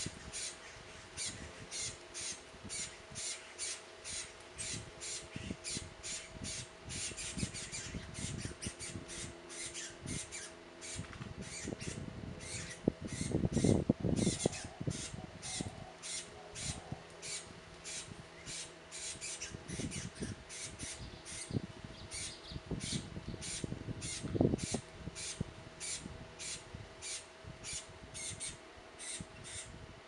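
Juvenile red-crested cardinal begging: short, high calls repeated steadily, about two a second. A louder low rumble breaks in about halfway through and briefly again later.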